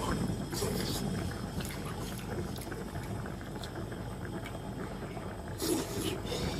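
Pot of broth simmering on a portable gas stove, a steady bubbling hiss. Short slurps of food being eaten come near the start and at about 6 seconds.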